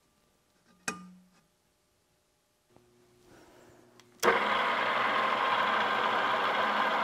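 A single sharp hammer tap on a centre punch about a second in. From about four seconds in, a DoALL floor drill press runs with a loud, steady noise that starts suddenly.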